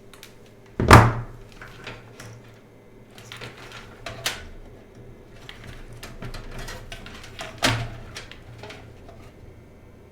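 Hands working inside a metal PC case: a loud knock about a second in, lighter clicks and rattles through the middle, and a second sharp knock near the end.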